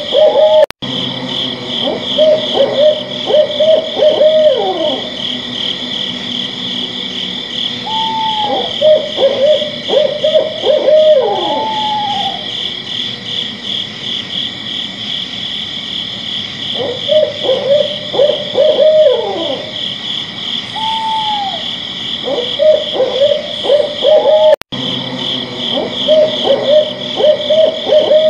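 An owl hooting in quick runs of calls, some ending in a downward slide, over a steady, high, pulsing chorus of night insects. The sound cuts out for an instant twice.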